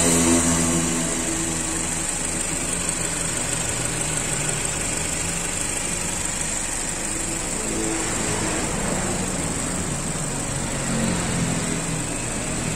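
Mazda CX-3's SkyActiv engine idling steadily, heard in the open engine bay, running normally with no noise from the repaired blower motor.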